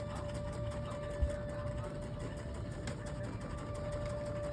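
Recorded air raid siren playing from a smart speaker, holding one steady wailing pitch, over the steady whir of a small motor. A brief thump about a second in.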